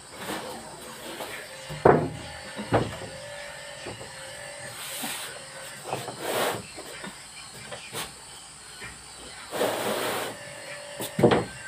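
Plywood wall panel being handled and pushed into place against a wooden wall frame: a few sharp knocks, the loudest about two seconds in, and several short scraping rubs of board on board. A faint steady hum runs underneath.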